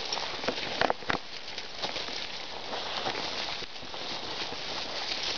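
Forest undergrowth and dry leaf litter rustling and crackling as a young coati pushes and noses through it, with a few sharper snaps about a second in.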